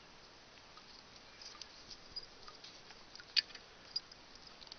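A few faint, sharp clicks and light rustles from handling a hand-held camera, over a quiet steady hiss; the loudest click comes about three and a half seconds in.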